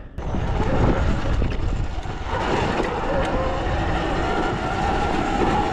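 Sur-Ron electric dirt bike being ridden along a dirt trail: wind rush on the microphone and tyre noise, with a faint whine from the electric drive coming in about two seconds in.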